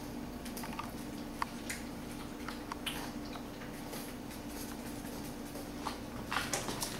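Bulldog eating: irregular wet crunches and clicks of chewing and lapping at its food, with a quick run of louder ones near the end, over a steady low hum.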